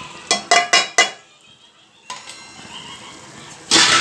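A steel cup knocks four times on an aluminium pressure cooker to tip curd out. Near the end a spoon starts stirring and scraping through the masala in the pot.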